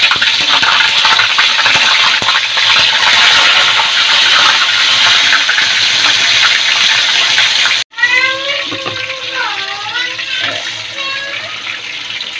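Tilapia deep-frying in hot oil in a wok: a loud, steady crackling sizzle. It cuts off abruptly about eight seconds in, then carries on softer with a few brief gliding whistle-like tones over it.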